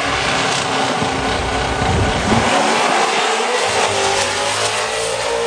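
Two cars launching side by side off a drag-strip start line at full throttle, their engines loud and climbing in pitch as they pull away.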